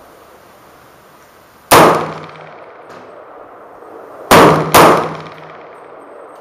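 Three rifle shots from an AR-15 chambered in .300 AAC Blackout, each with a short ringing echo. The first comes about two seconds in, and the second and third follow close together about half a second apart.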